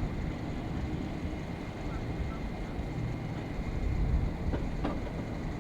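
Steady low rumble of boat engines running at a boat ramp, with voices faintly in the background.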